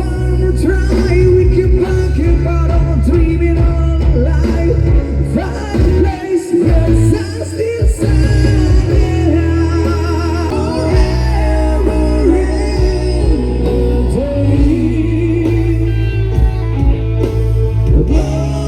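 Live band playing a rock song: singing over guitar, bass and drums.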